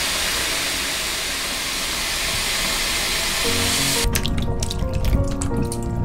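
Tap water pouring steadily into a basin full of green tangerines being washed, the stream stopping abruptly about four seconds in; after that, short splashes and knocks as hands handle the wet fruit in the water.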